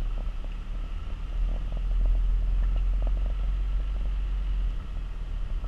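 Low, steady engine and road rumble heard from inside a pickup truck's cab as it drives, with a few faint small knocks and rattles.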